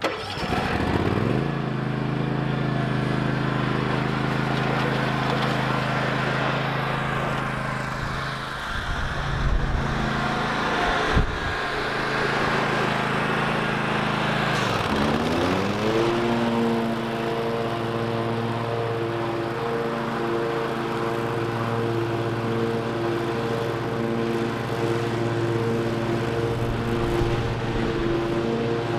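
Toro TimeCutter MyRide 54-inch zero-turn mower running with its blades cutting field grass as it drives up, passes close by and moves away. The engine pitch rises in the first second or so and rises again about halfway through, then holds steady.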